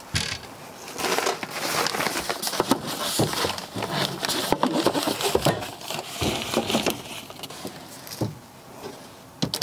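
Rustling of a fabric storage bag and scattered knocks as a bagged Omnia stovetop oven is pushed and shuffled into a cabinet under a sink.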